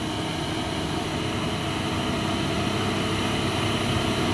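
Heavy truck's diesel engine running steadily, slowly getting a little louder.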